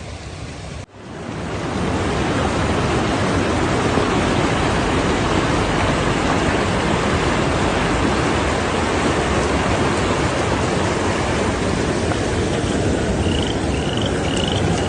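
A steady, heavy rush of water from torrential rain and floodwater, fading in about a second in and then holding even. Near the end five short high chirps repeat about twice a second over it.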